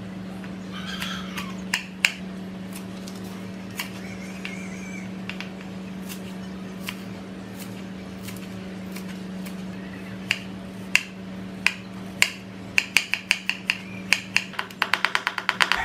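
Kitchen knife chopping vegetables (carrot, green onion, shallot) on a wooden cutting board. Scattered sharp taps of the blade on the board at first, then a quick run of chops in the last few seconds, over a steady low hum.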